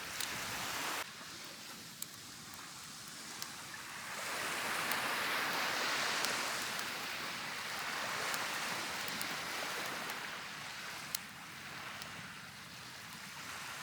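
Ocean waves washing on a beach, a steady hiss that swells for several seconds in the middle and then eases off, with scattered faint crackles from a bonfire.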